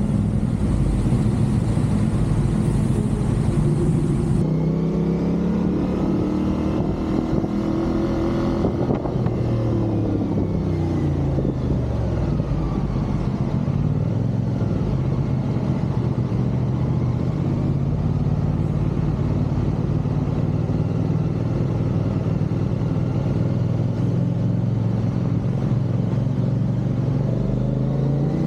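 CFMoto 450SR parallel-twin motorcycle engine running at expressway speed over a low rush of wind and road noise. The engine note rises and then falls a few seconds in, then holds steady.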